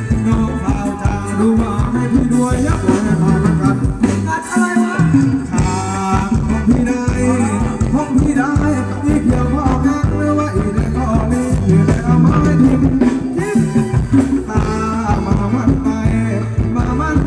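Live band playing Thai ramwong dance music with a steady beat and a singer.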